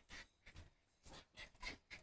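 Near silence broken by several faint, quick scuffs from a dog moving about.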